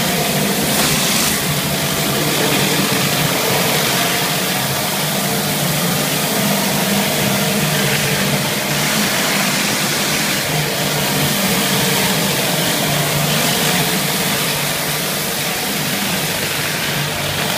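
A Viper rotary surface cleaner blasting hot pressurised water onto tile, a steady spray hiss over the hum of the pressure washer's engine, at an even level throughout.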